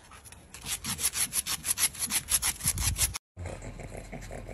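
A cat's claws scraping rapidly and repeatedly on concrete pavement, about five strokes a second, cut off suddenly about three seconds in.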